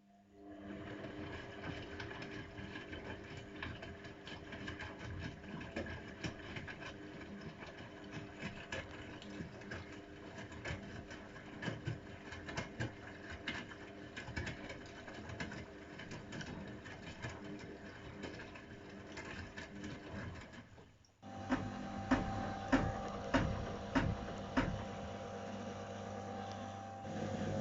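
AEG Öko-Lavamat 693 washing machine turning its drum in a boil wash: the motor hums steadily under a clatter of knocks. About 21 seconds in it stops for a moment, then starts again with a steadier hum and louder knocks.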